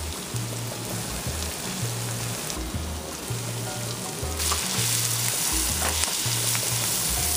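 Apples, onions and celery sizzling in butter in a sauté pan while a spoon stirs them, scraping the pan now and then. The sizzle gets louder about four seconds in.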